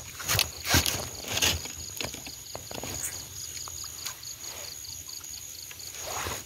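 Leaves rustling and metal snake tongs knocking and clattering as a snake is pulled out of a bush and handled, the loudest knocks in the first second and a half. Behind it, night insects chirp steadily in a high, even pulse of about three a second.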